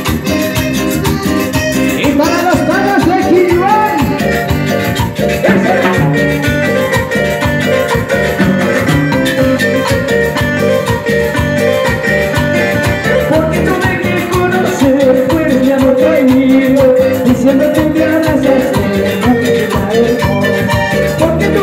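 A live Latin dance band playing, with electronic keyboard and percussion (timbales and shakers) keeping a steady beat, and a singer on microphone.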